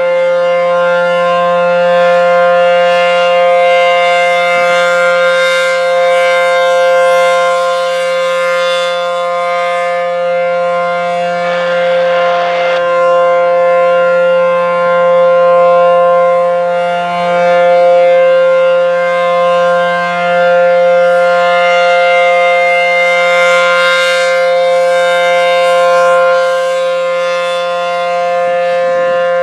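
ACA P-10 outdoor warning siren sounding a loud, steady tone during its monthly test, the pitch holding level throughout with only slight swells in loudness.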